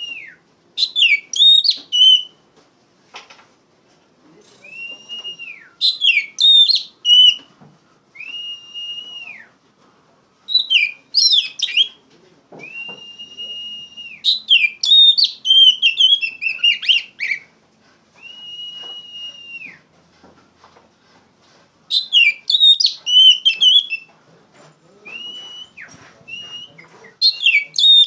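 Oriental magpie-robin (kacer) singing loudly. Bursts of quick, varied chirping notes alternate with long, clear, level whistles that rise at the start and drop away at the end.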